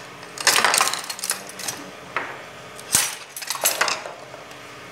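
Dishes and cutlery clinking and clattering as they are handled, in a series of short metallic and ceramic clatters with one sharp knock about three seconds in.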